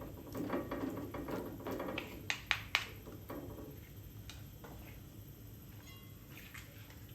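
Kitchenware clattering and scraping, with three sharp clinks between two and three seconds in, then dying down to faint room noise.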